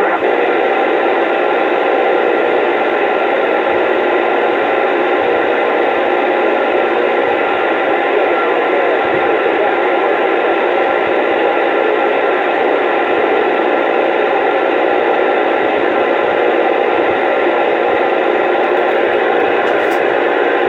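Steady static hiss from a two-way radio receiver's speaker: open band noise with faint steady tones in it and no voice on the channel.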